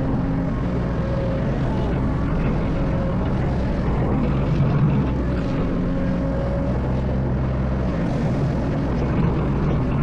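Excavator engine running steadily at working revs, with a steady hum and a faint higher whine that comes and goes.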